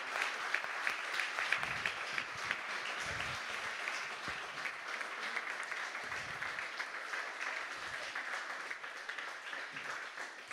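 Large audience applauding steadily, a dense patter of clapping that eases a little near the end.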